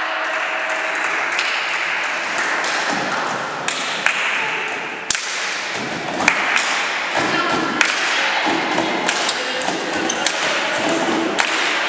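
A volleyball bouncing and thumping on the wooden floor of a sports hall between rallies, a string of sharp thuds and taps that come thicker from about halfway through, over the steady background noise of the hall.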